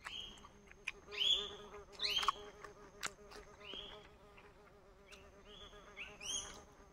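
An insect buzzing steadily close by, while a bird gives short whistled calls about six times at uneven intervals; a few faint clicks.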